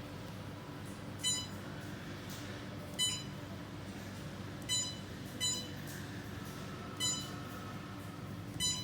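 Six short electronic beeps at uneven intervals, each a fraction of a second long, over a steady low hum.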